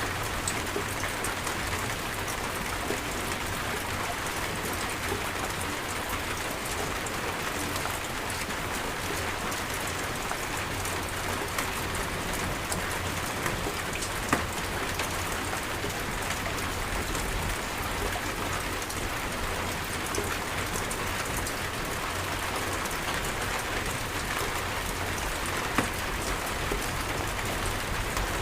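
Steady heavy rain falling on surfaces, an even dense patter with occasional louder single drops striking close by.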